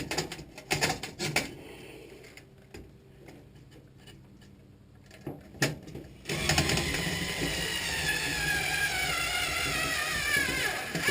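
Scattered clicks and knocks of handling, then about six seconds in a small electric motor starts abruptly. It runs for some four seconds, its pitch falling steadily, and then stops.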